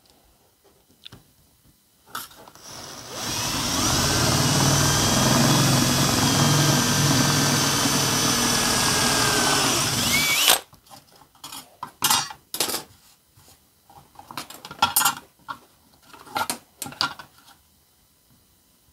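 Cordless drill running steadily with a 7/32 inch bit, boring out a pilot hole through a metal ruler into the wood beneath; it spins up about two seconds in, runs for about seven seconds, and stops abruptly. After it, a string of short knocks and brief clattering bursts.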